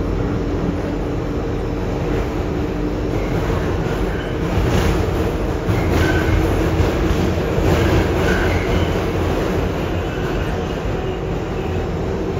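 Inside an R142A subway car in motion: steady rumble of steel wheels on the rails with the hum of the traction motors. It gets louder in the middle, with a few sharp clacks from the wheels passing over rail joints.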